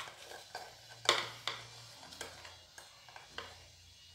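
A metal spoon clicking and scraping while scooping salt, a scattering of light clicks with the sharpest about a second in.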